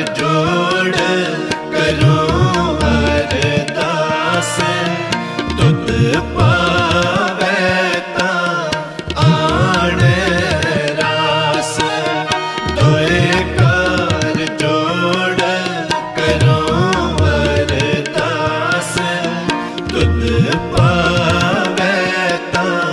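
Sikh shabad kirtan: a male ragi sings the lines of the shabad in a wavering, ornamented melody over tabla and steady held accompanying tones.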